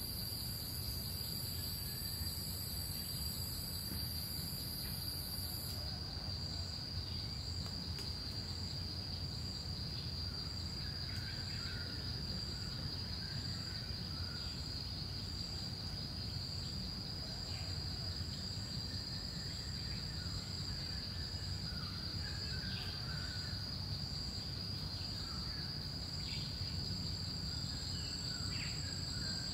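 Forest insects: a steady, shrill insect drone, joined about six seconds in by a higher insect call pulsing about once a second. Faint, scattered chirps sound here and there.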